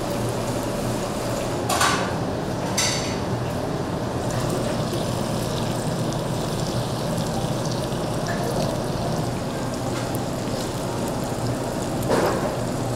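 Food sizzling steadily as it cooks, with short clatters of kitchenware about two and three seconds in and again near the end.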